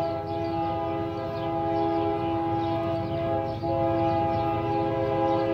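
Multi-chime air horn of an approaching GE AC4400CW diesel locomotive sounding one long, steady blast, with a brief dip about three and a half seconds in, over a low rumble of the train.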